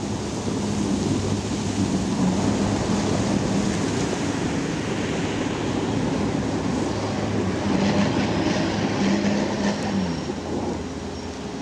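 Two Sherp amphibious ATVs' engines running at a distance as the machines churn through water and broken ice and climb onto the ice, their pitch rising and falling and dropping about ten seconds in, over a steady rushing noise.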